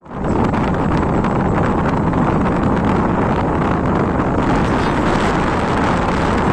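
Strong wind buffeting the microphone: a loud, steady rumble and hiss that cuts in suddenly.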